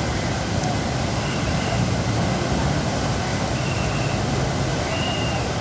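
Muddy floodwater rushing under a concrete bridge: a steady, even roar of fast-flowing water.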